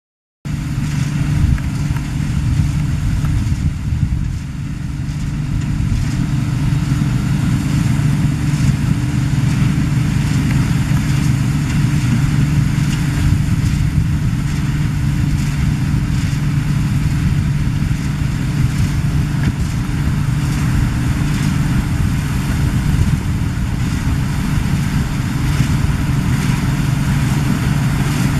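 Claas Dominator 96 combine harvester running steadily, a deep even drone that starts abruptly about half a second in.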